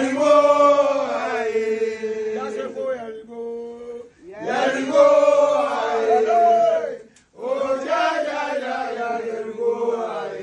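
Men chanting a song in three long phrases with short breaks between them, the notes held and sliding.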